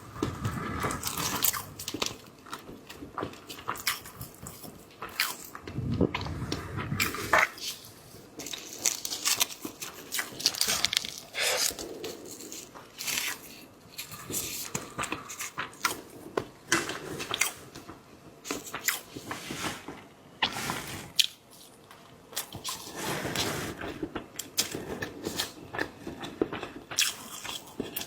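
Close-miked eating of seafood: irregular crunches, wet mouth clicks and chewing.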